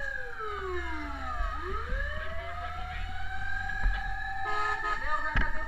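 Fire truck siren wailing: its pitch slides down for about a second and a half, sweeps back up and holds high. Short choppy siren or horn blips come in near the end.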